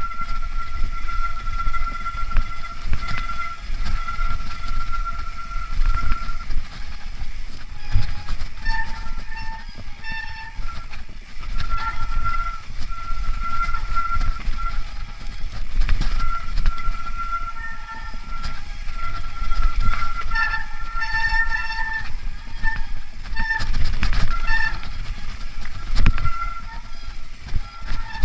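Mountain bike descending a leaf-covered dirt trail: tyres rumbling over the ground with knocks and rattles, wind on the camera, and a steady high-pitched whine from the bike that breaks off and comes back. Extra squealing tones join in briefly about ten seconds in and again past twenty seconds.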